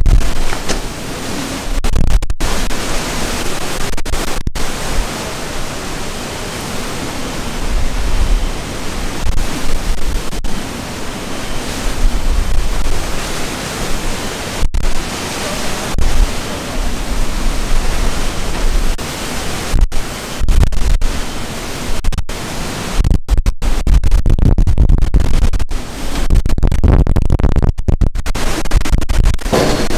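Hurricane-force eyewall wind and driving rain hitting the microphone: a continuous rushing noise that swells in gusts, with heavy low wind buffeting strongest over the last several seconds. The sound briefly cuts out several times near the end.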